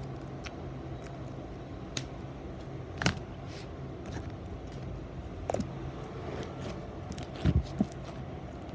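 Hands squeezing and kneading thick slime, giving a few scattered sharp clicks and pops, the loudest a quick double pop near the end, over a steady low hum.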